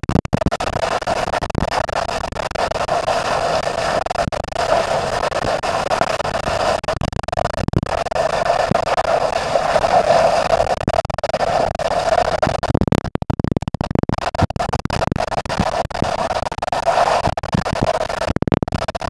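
Water splashing and churning against a camera held at or just under the surface, a dense crackling rush with many small clicks and a steady mid-pitched drone underneath.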